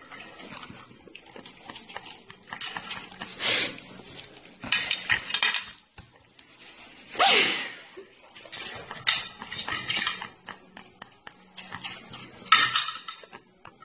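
A fork and fingers clicking and scraping on a ceramic dinner plate in irregular bouts, with several louder breathy, rustling bursts in between.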